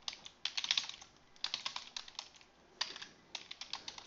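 Computer keyboard typing: clusters of quick keystrokes separated by short pauses.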